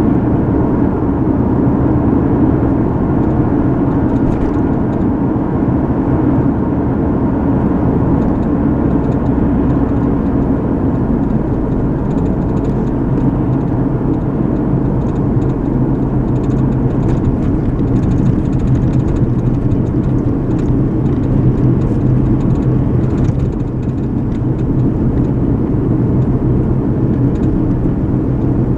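Steady road and engine noise of a car driving, heard from inside the cabin: a continuous low hum and tyre rumble.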